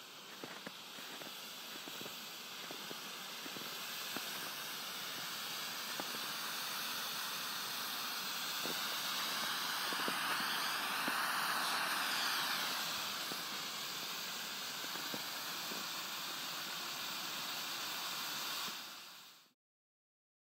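DM-11 smoke pot burning, a steady hiss of smoke jetting from the canister with faint crackles. It swells louder around the middle and cuts off suddenly near the end.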